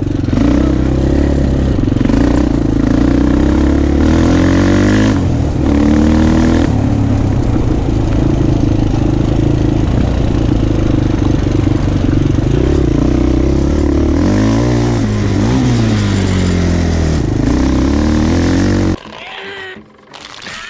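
Suzuki LT-Z400 quad's big-bore single-cylinder four-stroke engine under way, its pitch rising and falling again and again as the rider accelerates and backs off. About nineteen seconds in, the engine sound cuts off suddenly.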